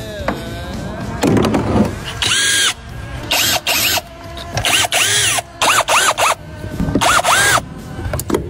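A power drill runs in a series of short bursts, its motor whine rising and falling in pitch with each trigger pull, while parts of a car's power steering rack are taken apart.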